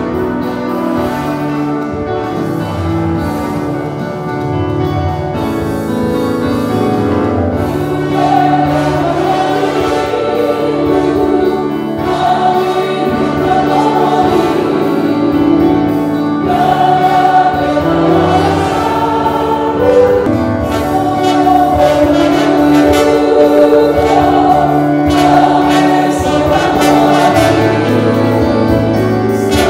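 Music: a choir singing over instrumental accompaniment, in sustained, steady-paced phrases.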